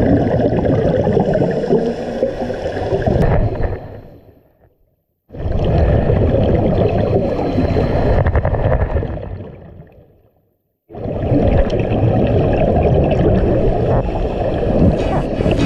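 Underwater bubbling and gurgling from scuba divers' exhaled breath, heard through an underwater camera housing. It comes in three long stretches; twice it fades away to silence and then starts abruptly again.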